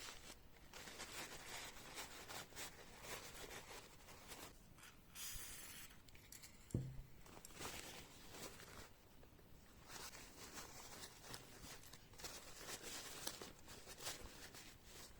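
Hand polishing of a small pistol part: faint, irregular rubbing strokes, with one sharp knock a little under seven seconds in.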